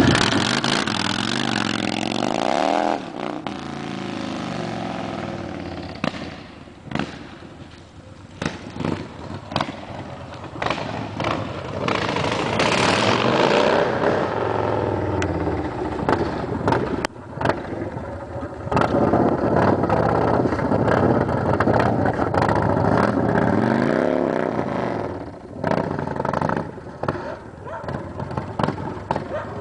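Yamaha Road Star Warrior's 1700cc V-twin motorcycle engine revving, then being ridden away and back past, its note rising and falling with the throttle and fading as the bike moves off before growing loud again.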